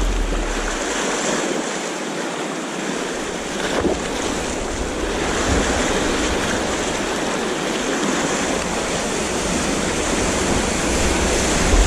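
Sea surf washing steadily along the shore, with wind buffeting the microphone in low gusts that ease for a moment about a second in.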